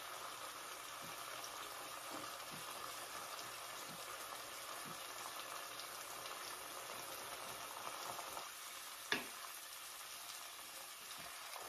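Sliced sweet onion and thin Steak-umm beef sizzling steadily in a skillet over medium heat, with a single light click about nine seconds in.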